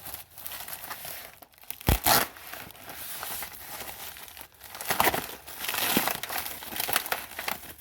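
Packaging being crumpled and torn off by hand, an irregular rustling and crinkling, with a sharp knock about two seconds in and louder bursts of tearing near the middle.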